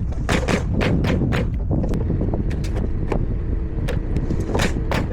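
Irregular sharp knocks of nailing into wood framing, about a dozen in a few seconds, over a steady low rumble of wind on the microphone.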